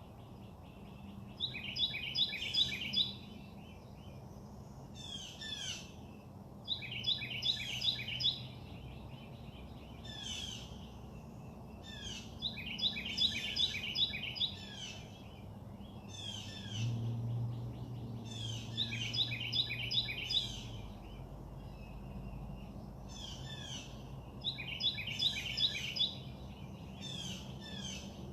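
A songbird singing the same phrase of rapid repeated notes, five times, roughly every five or six seconds, with softer chirps between, over a low steady hum.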